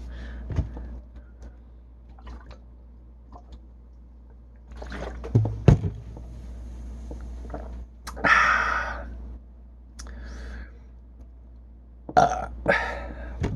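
A man drinking carbonated soda and burping: several separate short sounds with quiet gaps between them, among them a burp.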